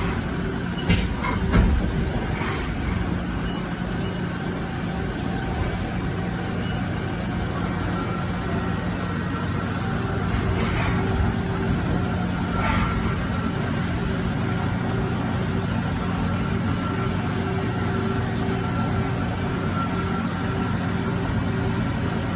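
Haas ST-20 CNC lathe running with a steady mechanical hum and a faint high whine. A few sharp clicks sound in the first two seconds.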